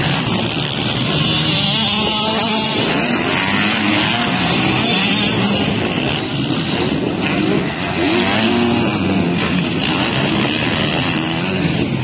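Several motocross dirt bikes' engines revving up and down as they ride the track, their pitch rising and falling.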